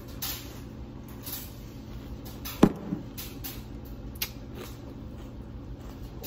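A metal fork and a glass jar of pickled banana peppers being handled: one sharp knock about two and a half seconds in, then a few lighter clicks, over a low steady hum.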